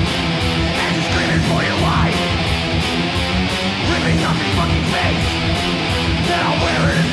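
Thrash metal song: distorted electric guitars playing a riff over bass, loud and unbroken.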